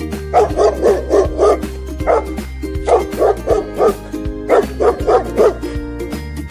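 Dog barking in quick runs of four to six barks, with pauses between the runs, over a steady background music bed.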